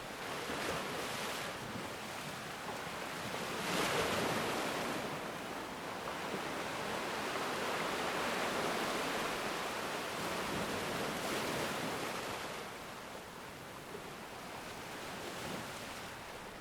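Ocean surf breaking and washing up a black sand beach: a continuous rush of water that swells louder about four seconds in and again through the middle, then eases off near the end.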